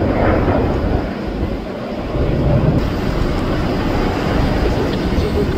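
Aircraft flying overhead: a loud, steady rumble that eases slightly around two seconds in and then builds again.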